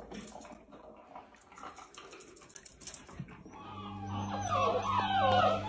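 Several puppies whining and whimpering together, many high wavering cries overlapping, starting about three and a half seconds in over a steady low hum.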